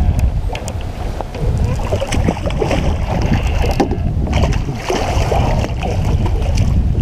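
Wind rumbling on the microphone, with water splashing as a channel catfish thrashes in a landing net beside a small boat, heaviest in the middle and later part.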